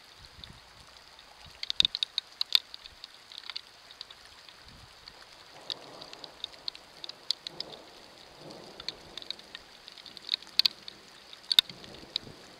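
Irregular small wet clicks and splashes of water, bunched into short clusters, from a fox lapping at a shallow concrete water basin.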